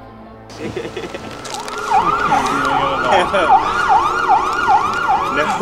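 Emergency-vehicle siren in a fast rising-and-falling yelp, about two and a half sweeps a second, coming in about one and a half seconds in.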